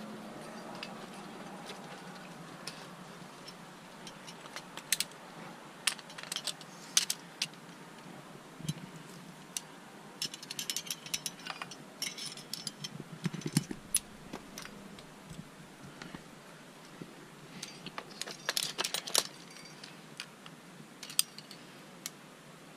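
Metal climbing gear (carabiners and protection racked on a harness) clinking and jingling in scattered short bursts as the climber moves, with a few dull bumps.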